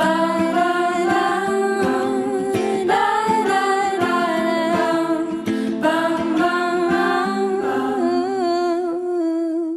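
Music: a voice humming a melody over instrumental backing, ending on a long held, wavering note near the end.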